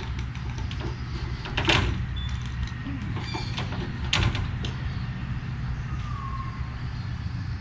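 Short scrapes and knocks of spline pieces being pressed into the channel of an aluminium screen frame, the screen mesh rustling, loudest about two and four seconds in, over a steady low rumble.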